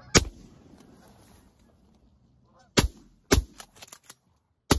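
Four shotgun blasts fired at geese overhead: one right at the start, then three in quick succession in the second half. Geese honk between the shots.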